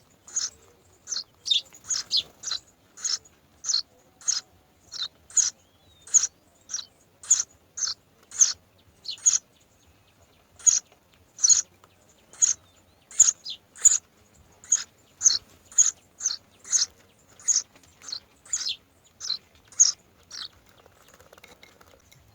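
Myna bird chirping: a steady series of short, high calls, about two a second, that stop near the end.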